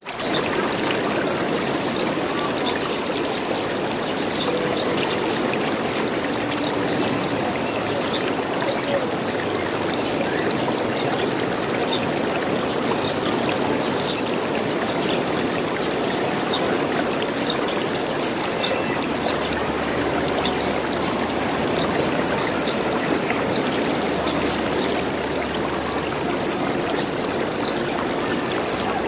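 Running water gurgling steadily, like a small stream over stones, with frequent small high plinks scattered through it.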